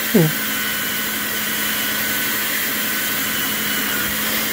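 Belt sander running steadily with a constant hum and hiss as the edge of a round plywood stool seat is held against the moving belt. A short falling tone sounds just after the start.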